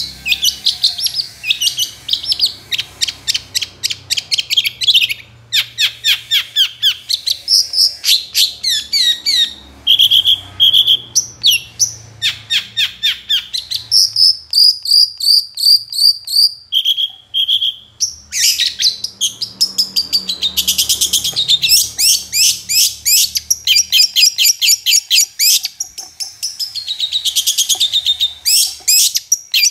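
Long-tailed shrike (cendet) in full song: a long, fast run of varied chattering notes mixed with a few clear whistles, pausing only briefly now and then.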